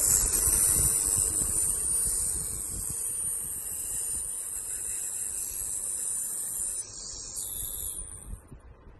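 SMPS Micro ultrasonic milk stirrer running with its probe in a milk sample: a steady high-pitched hiss. It breaks off briefly near the end, comes back slightly lower, then stops.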